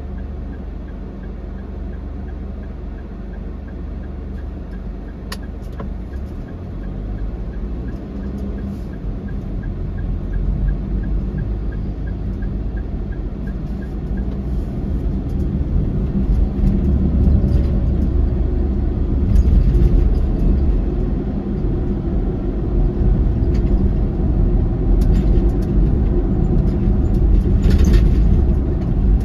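Steady low road and engine rumble of a car moving off and driving, growing louder from about eight seconds in as it gathers speed. A faint regular turn-signal ticking runs through the first half and stops about fourteen seconds in.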